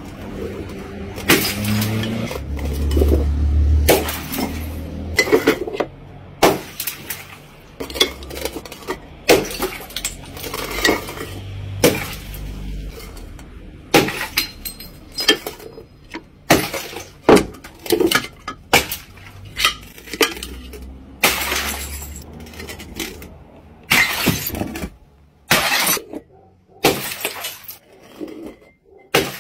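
Liquid-filled glass bottles smashing one after another on brick paving, a sharp crash with a brief tinkle of shards every second or two. A low rumble comes in at times between the crashes.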